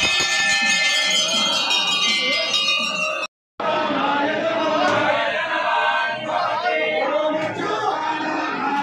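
Temple bells ringing, several steady ringing tones together. After a short break about three seconds in, a crowd of voices calling out.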